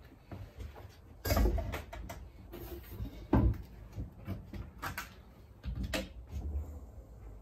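About four knocks and clunks of handling work on a trailer's concession window and its lift-up door, spread a second or two apart, the loudest a little over a second in and about three seconds in.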